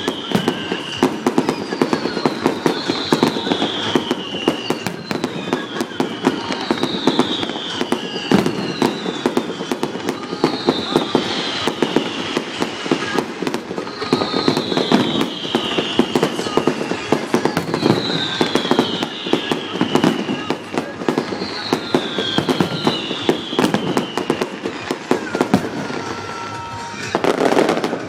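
Fireworks display: a dense run of bangs and crackling from bursting shells and ground fountains, with a short falling high whistle that repeats every couple of seconds. About 26 seconds in there is a brief lull, then a louder burst.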